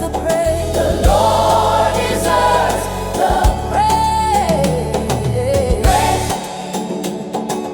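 Upbeat Afro gospel praise music: a choir singing over a heavy bass line and drums, with the bass dropping out about six seconds in.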